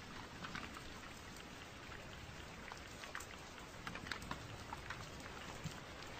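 Rain falling steadily, individual drops heard as scattered sharp ticks over an even hiss.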